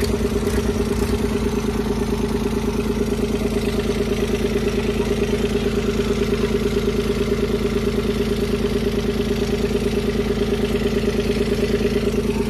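Diesel tractor engine idling at a steady, even chug.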